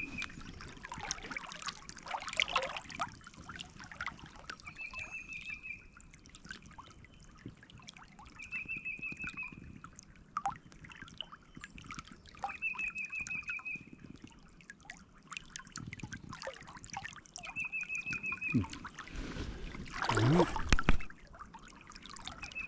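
Creek water trickling, with scattered small clicks and rustles. A short high trill repeats about every four seconds, and a loud rush of noise comes about twenty seconds in.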